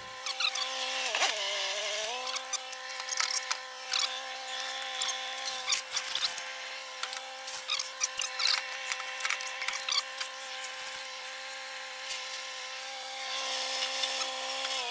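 A handheld power tool's motor running at a steady whine, its pitch sagging briefly under load about a second in and then recovering, with irregular clicks and scrapes over it.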